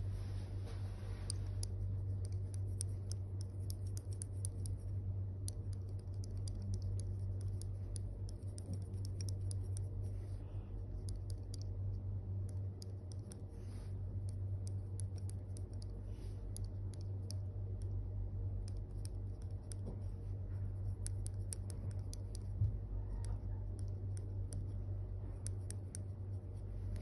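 A flat steel pedicure blade shaving hardened callus off the sole of a foot, heard as a long run of small dry scratches and clicks. A steady low hum lies underneath.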